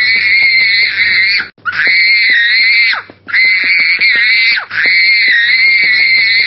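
A small child screaming in a tantrum on a supermarket floor: four long, high-pitched screams with brief breaks for breath, each trailing off with a falling wail.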